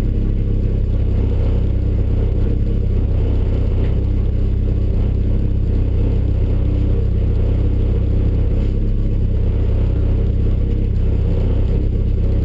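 Tuff truck's engine idling, heard from inside the cab: a loud, even, low rumble that holds steady without revving.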